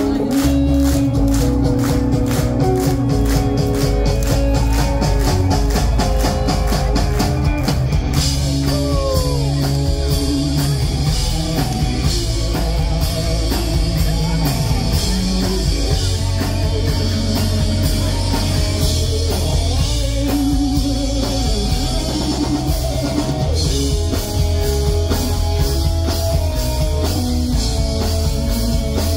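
Live pop-punk band playing loud with drum kit and electric guitars. Fast, dense drumming runs for about eight seconds, then the song moves into a section of longer held chords.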